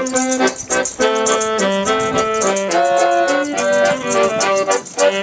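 Street band music: an accordion and a saxophone playing a tune together, with a tambourine keeping a steady beat.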